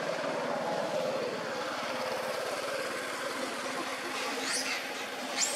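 A steady low mechanical drone, like a running engine, with a faint high, falling squeal about four seconds in.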